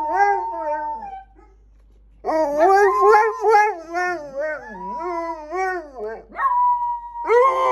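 Dogs howling together in long, wavering, yodel-like calls, with more than one voice at once. They break off for about a second soon after the start, then take up the howl again, one briefly holding a steady note near the end.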